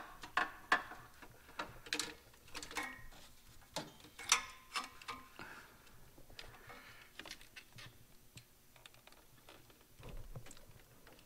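Irregular clicks, taps and scrapes of a borescope inspection camera's cable being worked past the exhaust header into an engine's spark plug hole, with a few sharper knocks in the first half and a duller knock near the end.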